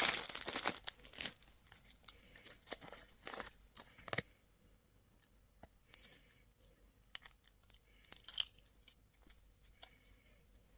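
Candy wrapper being torn open and crinkled, a dense crackle at first that dies down within about a second, followed by scattered short crinkles and light clicks that thin out toward the end.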